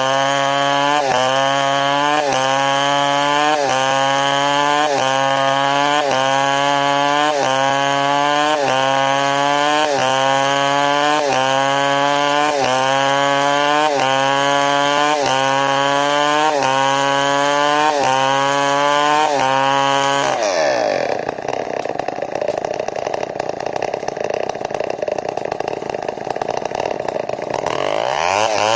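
Large two-stroke New West 070 chainsaw running hard through a long rip cut, its engine pitch swelling and dropping back about every second and a half. About twenty seconds in, the revs fall away and the sound turns rougher and a little quieter for several seconds, then picks back up near the end.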